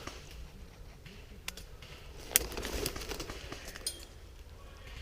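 Faint rustling with a few scattered sharp clicks, the sharpest about two and a half seconds in.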